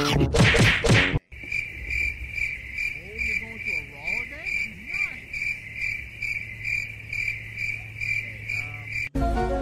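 Cricket-chirp sound effect: an even, steady chirping at about two to three chirps a second. It follows a loud noisy rush in the first second that cuts off abruptly.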